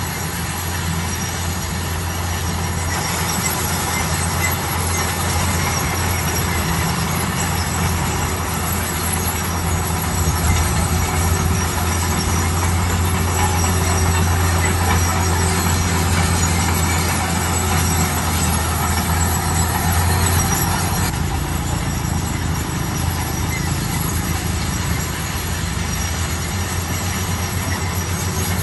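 Bulldozer working: its diesel engine running steadily under load, with the high squeal of its steel tracks over it, a little louder through the middle.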